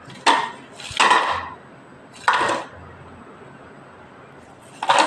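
Crisp fried namak paare tumbling off a metal slotted spoon into a ceramic bowl, in short clattering bursts: three in the first two and a half seconds and another near the end.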